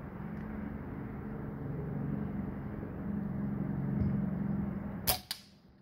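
A vehicle passing on the road, a steady engine and tyre hum that grows louder over the first four seconds. Two sharp clicks come about five seconds in.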